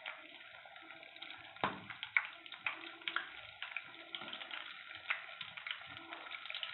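Battered green chillies for mirchi bajji deep-frying in hot oil: steady sizzling with scattered crackles and pops, and one sharper crack about a second and a half in.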